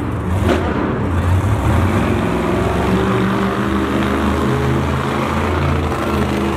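Monster truck's supercharged V8 engine running and revving up and down in pitch as the truck manoeuvres.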